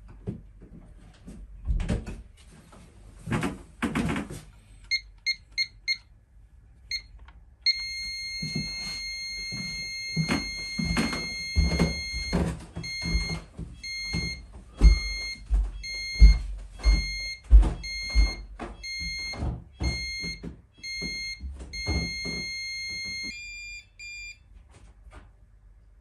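Pyronix Euro 46 alarm keypad beeping as the system is set, showing the exit route through the hall: four short beeps, then a steady beep of about five seconds, then regular pulsed beeps for about ten seconds, ending in a few quicker beeps. Repeated thumps and knocks from the door being handled and closed sound throughout.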